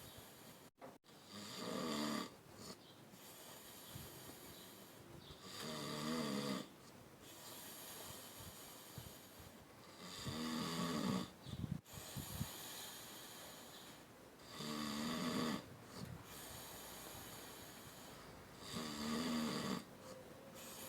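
Someone snoring in deep sleep. There are five loud, rasping in-breath snores about four seconds apart, with quieter breathing in between.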